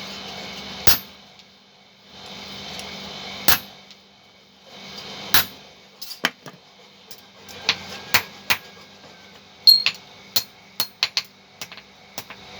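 Metal being struck while forging a dental band remover. Three single sharp blows each end a spell of steady machine noise, then a run of quicker, irregular hammer strikes with a bright metallic ring follows from about halfway through.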